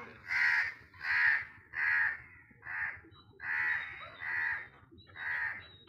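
An animal's harsh calls, seven in a row, about one every 0.8 seconds, each short and of even strength.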